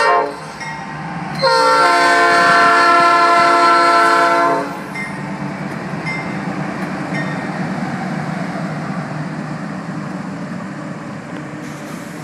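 Norfolk Southern diesel locomotive horn, a chord of several notes: a short blast right at the start, then a long loud blast from about a second and a half to four and a half seconds in, the close of the warning for a grade crossing. After it, the steady rumble of the passing locomotives' engines and wheels, slowly fading.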